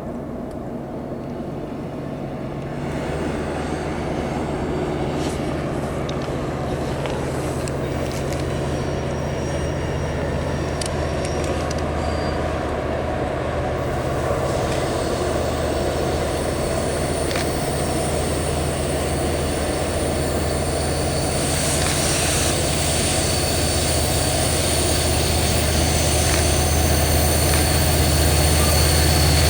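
Diesel-electric locomotives of a freight train running, a steady low engine drone that grows gradually louder as the train comes closer. A thin, high whine joins about two-thirds of the way in.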